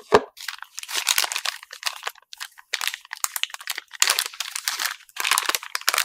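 Clear plastic parts bag crinkling and crackling in irregular bursts as hands handle it and pull it open. There is a soft knock right at the start.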